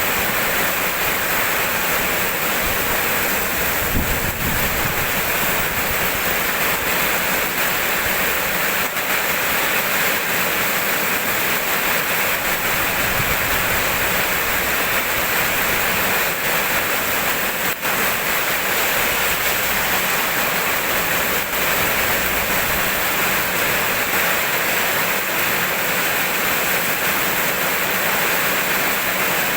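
Steady rain falling, an even hiss that doesn't let up, with a couple of faint low rumbles.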